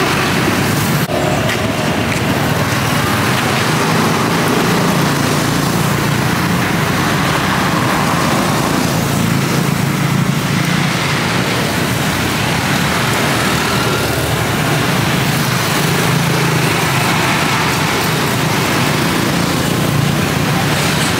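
Steady road traffic noise, with engines running continuously.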